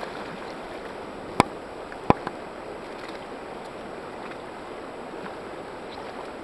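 Steady rush of river water flowing around a wading angler, with two sharp clicks about a second and a half and two seconds in.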